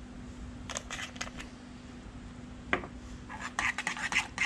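A few light clicks from a small spice jar being shaken over a saucepan about a second in, a single knock near three seconds, then a spoon scraping and clicking in the pan of mashed potato as stirring begins.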